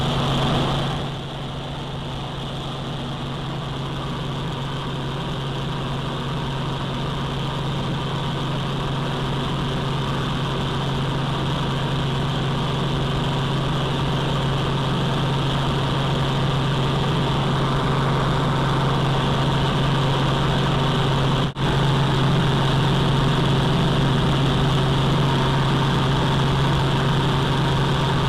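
Helicopter engine and rotor running in steady flight, heard from inside the cabin as a constant low drone. The sound drops out for an instant about three-quarters of the way through.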